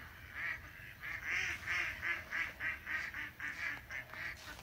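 Mallard ducks quacking in a quick run of short calls, about three or four a second, starting about a second in.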